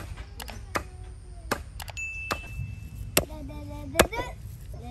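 Wooden mallet pounding raw minced chicken on a stone slab: a series of dull thuds at an uneven pace, the loudest about four seconds in.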